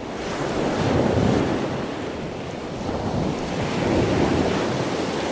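Ocean waves washing in, a steady rush that swells about a second in and again about four seconds in.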